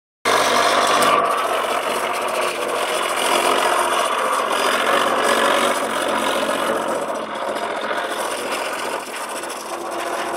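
Large radio-controlled scale model MB Trac 1500 tractor running as it pulls a cultivator, its drive giving a steady mechanical running noise that starts abruptly and eases slightly in the second half.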